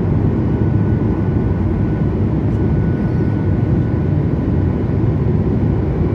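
Jet airliner in flight, heard inside the passenger cabin: a steady, deep rush of engine and airflow noise with a faint, even high engine whine over it.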